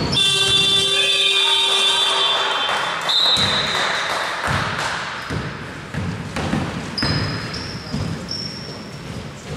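A basketball game in a sports hall. An electronic buzzer sounds for about two seconds right at the start. Then the ball bounces on the court in a run of thuds, and sneakers squeak several times near the end.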